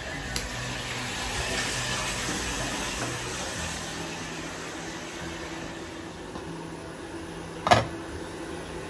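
Steady rushing background noise, then near the end one loud metal clank, the lid coming off a steel pot of boiling chicken.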